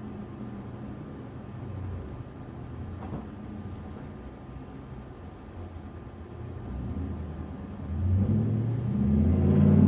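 City street traffic rumbling; near the end a motor vehicle's engine grows louder as it approaches and accelerates.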